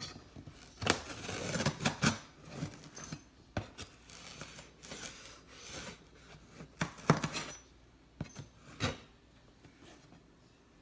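Cardboard package being opened by hand: irregular tearing, scraping and rustling of the box and packing, with a few sharp clicks and knocks, busiest around the second and seventh seconds.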